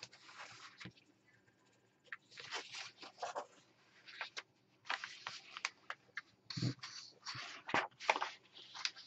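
Paper rustling as a printed instruction booklet is picked up, opened and its pages handled and turned: a string of irregular swishes and crinkles.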